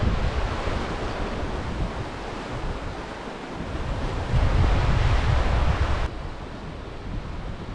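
Sea wind buffeting the microphone over surf on the shore, rising in a gust about halfway through and dropping off suddenly about six seconds in.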